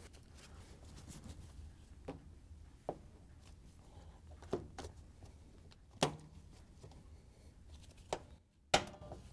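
Scattered sharp clicks and knocks, about six over the stretch and the loudest about six seconds in, as a metal spring clamp is worked into the groove of a washer door bellow seal with locking pliers.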